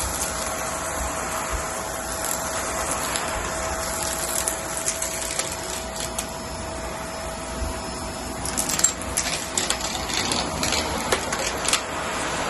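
Vacuum cleaner running over a rug: a steady rushing noise with a faint steady whine, then a run of sharp crackles and clicks in the last few seconds.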